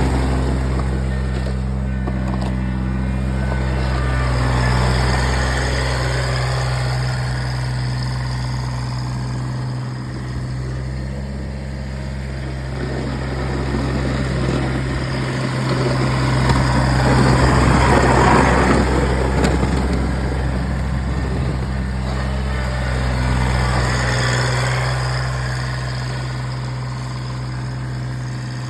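Kubota BX1800 compact tractor's diesel engine running steadily, with a louder, rougher stretch about two-thirds of the way through.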